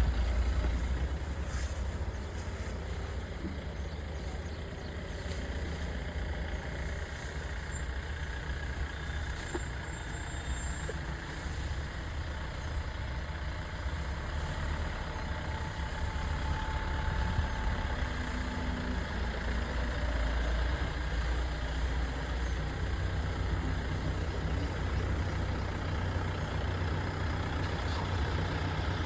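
Safari vehicle's engine idling, a steady low rumble.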